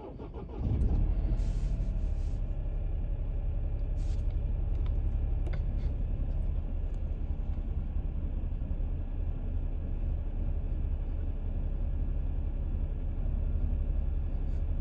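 2023 Ford Escape's 1.5-litre three-cylinder engine cold-started at 10°F, heard from inside the cabin: a brief crank, catching within about a second, then a steady low idle rumble at a raised cold-start idle of a little over 1,000 rpm.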